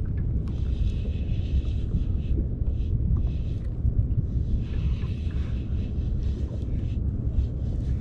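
Wind buffeting the microphone on an open kayak: a steady low rumble, with short stretches of higher hiss coming and going.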